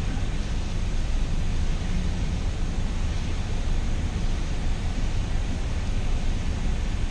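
Steady low rumble and hiss in a parked car's cabin, typical of the engine idling with the blower fan running.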